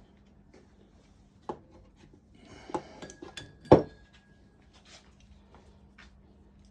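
Metal parts of a car's front suspension strut assembly being handled and knocked together: a few clinks and knocks, the loudest about three and a half seconds in, with a brief metallic ring after one of them.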